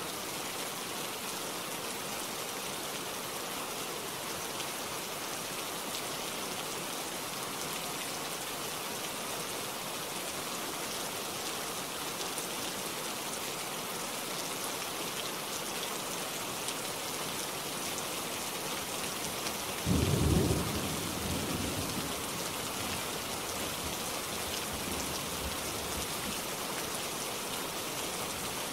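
Steady rain falling, an even hiss throughout. About twenty seconds in comes a sudden low rumble of thunder that fades away over a couple of seconds.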